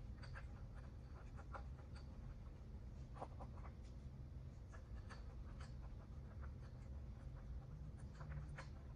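Faint scattered metal clicks and scrapes of nuts being turned by hand onto the bolts of a leaf-spring top plate, over a steady low hum.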